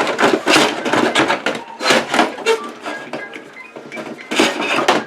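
Irregular clatter and knocks of computer parts being handled and worked loose inside an old desktop PC case, metal and plastic knocking together.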